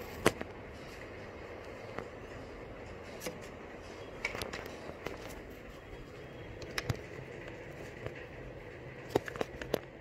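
Irregular sharp clicks and knocks from hands working on a kitchen counter close to the microphone, a dozen or so in all, the loudest right at the start and a quick cluster near the end, over a steady low hum.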